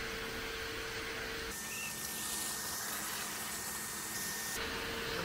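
Shop vacuum running to suck a pull wire through an aluminium bimini frame tube: a steady motor whine with a rush of air. The whine drops and the hiss brightens abruptly about a second and a half in, then switches back near the end.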